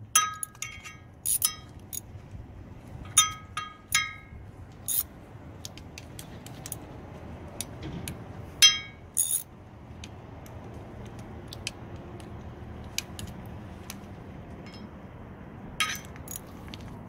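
Steel hand tools clinking and ringing against the truck hub's bolts and metal parts while the bolts are tightened by hand. The clinks come in quick groups in the first few seconds, again about nine seconds in and near the end, over a steady low hum.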